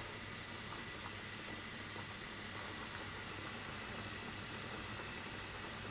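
Water at a full rolling boil in a small saucepan over a gas flame: a steady, even hiss.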